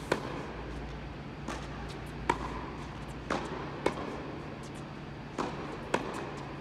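Tennis racket striking the ball four times in a baseline rally, about every two seconds, each sharp hit coming about half a second after a softer knock of the ball bouncing on the hard court. The strokes ring in the large indoor hall over a steady low hum.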